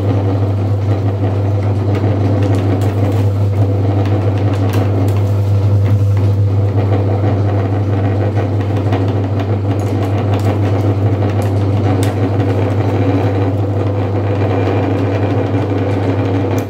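Motor-driven meat grinder running steadily with a strong low hum, grinding candy, with scattered faint clicks from the pieces being crushed.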